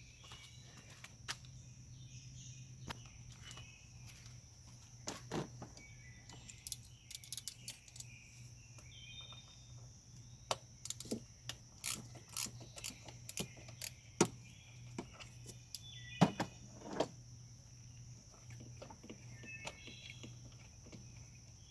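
Irregular metallic clicks and clinks of a socket wrench working out the last buried bolt of a 2008 Audi A8L throttle body. Birds chirp now and then over a steady high insect drone.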